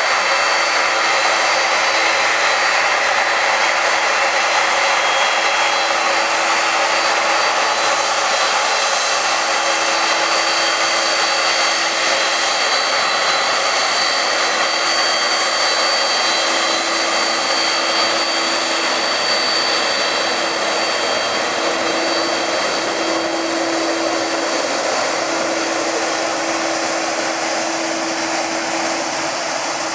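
Boeing 767-375ER's twin jet engines running, a loud steady rush with a high whine over it, easing off slightly over the last several seconds.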